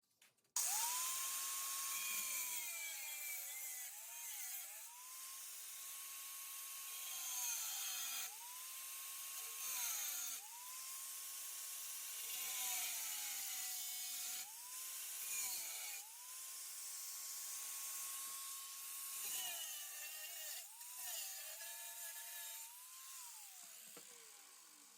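Small high-speed power cutting tool cutting sheet-steel patch panel: its whine starts abruptly, holds steady, then sags in pitch each time it bites into the metal, over and over, and winds down near the end.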